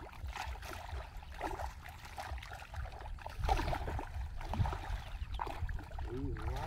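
Bare feet wading through shallow muddy water, with irregular sloshing and splashing steps.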